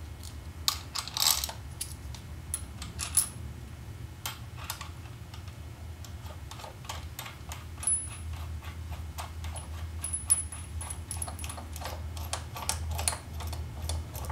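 Small steel parts clicking and clinking: a bearing cup and nut being fitted and the nut threaded by hand onto the bolt of a main drive gear bearing installation tool. Some clicks ring briefly. A steady low hum runs underneath.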